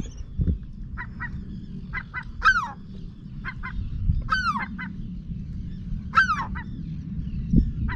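Gull chick calling: short high peeps and three longer calls that fall in pitch, about two seconds apart, over a steady low rumble.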